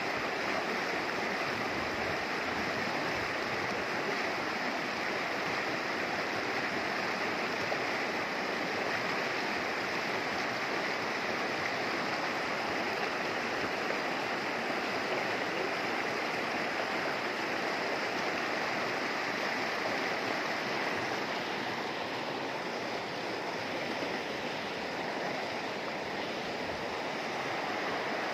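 Shallow mountain river rushing over rocks and boulders in a whitewater riffle: a steady, even rush of running water.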